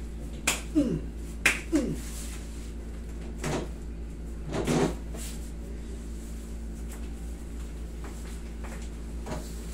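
Sharp clicks and creaks from hands-on knee manipulation on a padded massage table: two clicks about a second apart, each followed by a short falling creak, then two softer knocks a few seconds in, over a steady electrical hum.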